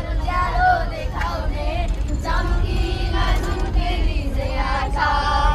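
Children singing together, over a steady low rumble.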